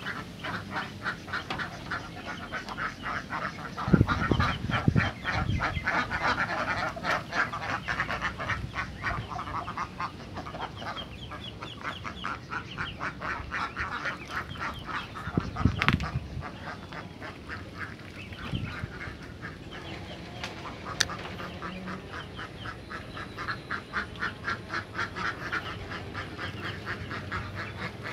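A flock of domestic ducks quacking in a rapid, continuous chatter. A few dull thumps come about four and five seconds in and again around the middle.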